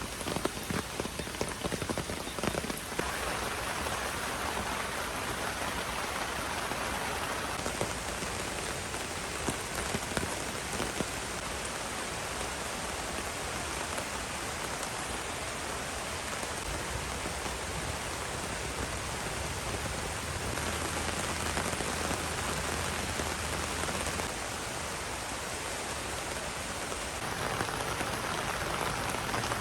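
Heavy rain falling steadily, a continuous hiss of rain with separate drops pattering in the first few seconds.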